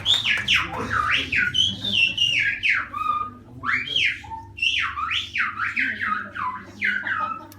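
Silbo Gomero, the whistled form of Spanish: one person whistling a message in quick rising and falling glides, phrase after phrase with short breaks.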